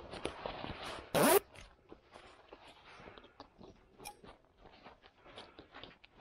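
Zipper on a camouflage life vest being zipped up, with one quick loud zip about a second in, followed by small clicks and rustling as the vest's plastic buckles and nylon straps are fastened and pulled tight.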